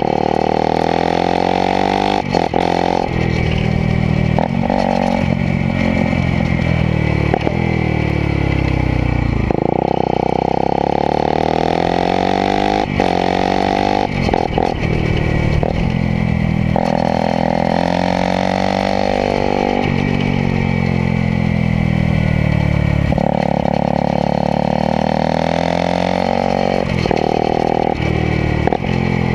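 Motorcycle engine heard close to its exhaust, revving up and down over and over as the bike accelerates and slows on a track, with stretches held at high revs between the pitch drops.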